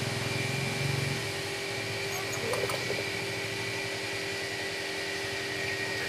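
A steady mechanical hum with a few constant tones, like a fan or air-conditioning unit, with a brief faint voice-like sound about two and a half seconds in.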